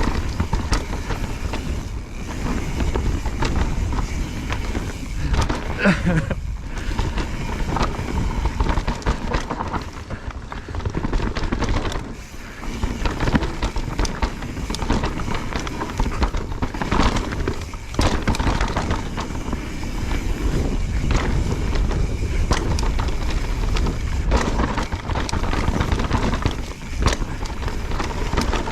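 Mountain bike riding down a dirt trail: tyres rolling and skidding on dirt, the bike rattling over bumps, and wind buffeting the microphone, with a short squeal about six seconds in.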